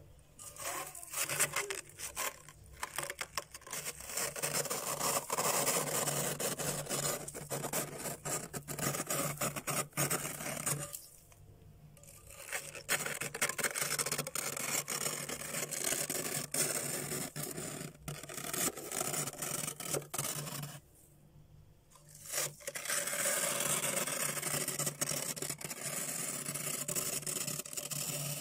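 Metal scraper blade scraping frost buildup off a freezer's inside wall, a run of scratchy, crunching strokes through the ice. It pauses briefly twice, about a third and three quarters of the way through.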